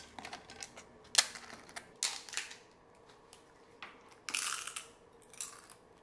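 Crisp microwave-roasted papad (pappadam) cracking and crunching as it is snapped apart by hand and bitten and chewed: a run of sharp crackles and short crunches, the sharpest crack about a second in.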